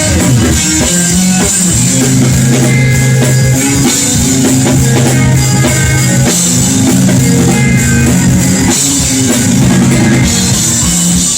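Live blues-rock band playing an instrumental passage: electric guitar over a drum kit, with low held notes underneath.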